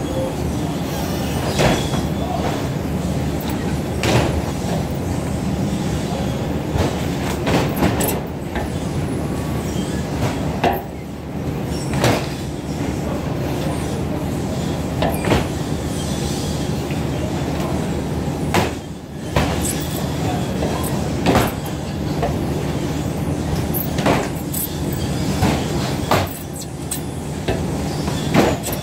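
Baggage belt loader conveyor running with a steady rattling rumble, and the knocks of suitcases being handled on it every few seconds.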